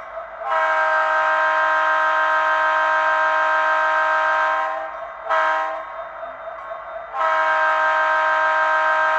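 Railroad air horn sounding a steady chord of several tones: a long blast of about four seconds, a brief toot about five seconds in, then another long blast starting near the seven-second mark. The blasts are a memorial horn salute.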